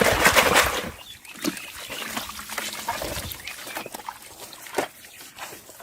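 Water splashing and sloshing, loud for about the first second, then dropping to scattered small splashes and knocks.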